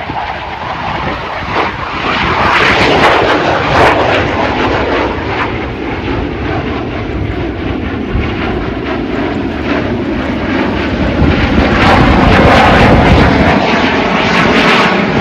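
Two-seat F-16 fighter jet flying past in a climb, its jet engine a loud, continuous roar that swells about two seconds in and again near the end.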